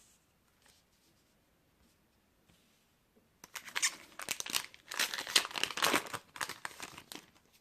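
A foil booster-pack wrapper being torn open and crinkled, a dense crackling that starts about three and a half seconds in and stops shortly before the end.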